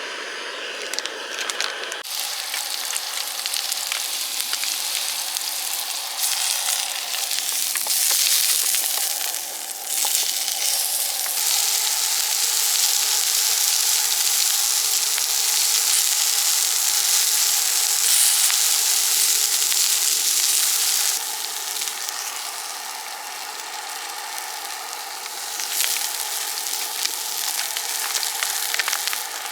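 Food sizzling and crackling in a frying pan over heat, a dense steady sizzle that grows louder for a stretch in the middle and eases off again.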